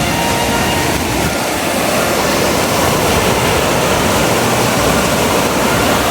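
Steady, loud rushing noise of a moving vehicle on the way up to a hill plantation.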